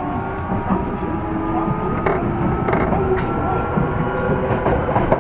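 Running sound inside an Osaka Metro 30000 series subway car: a steady rumble of wheels on rail with occasional sharp rail-joint clicks, over whining tones from the Mitsubishi IGBT-VVVF traction motors, some of them rising gently in pitch.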